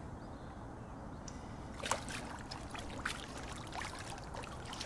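Lake water splashing and trickling in the shallow margin as a just-released carp swims off: a few small, sharp splashes and drips over a steady hiss.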